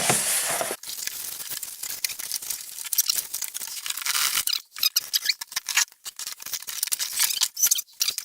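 Cardboard box and packing scraping, rustling and crackling as a computer case is pulled out of it, with many short clicks and scrapes close together.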